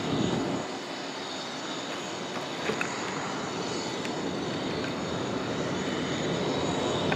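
Aircraft engines running: a steady rushing noise with a high whine, growing a little louder toward the end.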